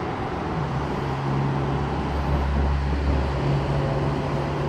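Low rumble and steady electric hum of an approaching Alstom Metropolis driverless metro train, the rumble swelling about two seconds in.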